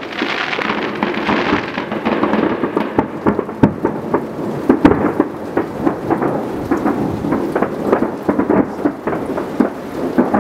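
A dense barrage of many fireworks going off at once: a continuous rolling rumble packed with frequent sharp bangs and pops, with a hissing crackle in the first couple of seconds.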